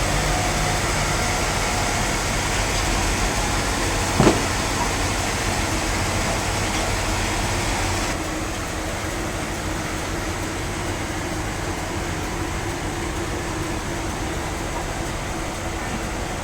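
Sawmill machinery running steadily, with a single sharp knock about four seconds in; it becomes a little quieter and duller from about eight seconds.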